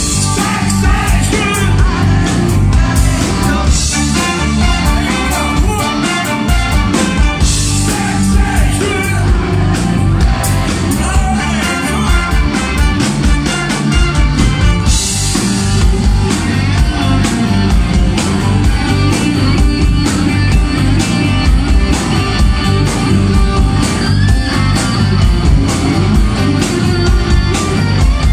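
Live rock band playing loudly: drum kit, electric guitars, bass guitar and a horn section of saxophone and trombone, with a male lead vocal and several cymbal crashes.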